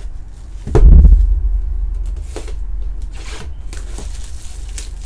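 A cardboard trading-card hobby box is set down on a table with a thump about a second in, followed by softer scraping and rustling as hands move it around.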